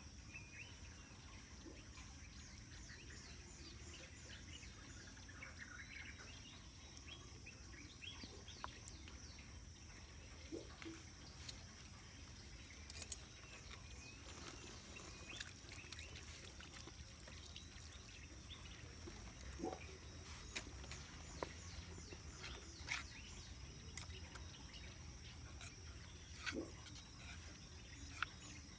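Faint outdoor background of insects shrilling in steady high tones, with scattered small clicks and taps from hands handling utensils and a plastic bowl.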